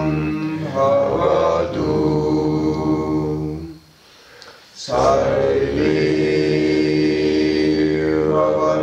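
Chanted mantra: long held vocal notes, with a brief pause for breath about four seconds in before the chant resumes.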